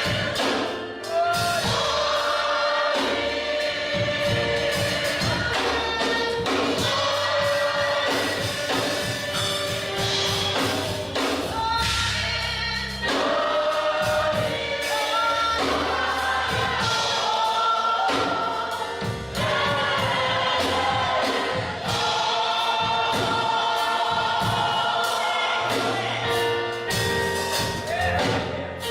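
Gospel choir singing, long held notes sliding between pitches over a steady musical backing.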